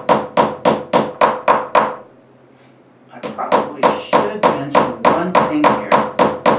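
Ball end of a ball-peen hammer tapping a small copper washer on a steel bench block, texturing it with light, quick, regular strikes about three to four a second. The hammering pauses for about a second partway through, then resumes.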